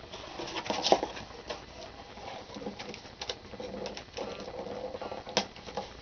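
Cardboard box being handled and its flaps folded shut: scattered rustles, scrapes and light knocks of cardboard, with a sharper knock about a second in and another near the end.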